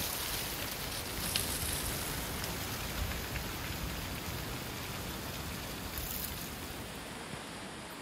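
Gusting wind with dry autumn leaves rustling and skittering across an asphalt road. The gust eases and the sound grows gradually quieter.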